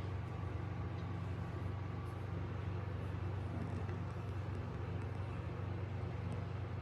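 A machine running with a steady low hum, unchanging throughout.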